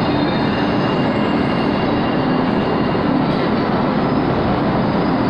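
MBTA Green Line light-rail train moving through an underground subway station: a steady, loud rumble of wheels on rail with a low steady hum.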